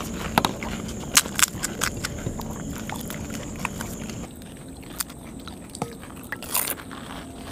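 Crisp hollow puris (gupchup) being cracked open with the fingers and bitten into: a string of sharp, irregular crackles and crunches, a few louder cracks among them.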